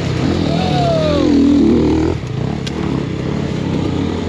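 2023 Beta X-Trainer 300 two-stroke dirt bike engine under load, its revs rising and falling, with one sharp knock about two and a half seconds in.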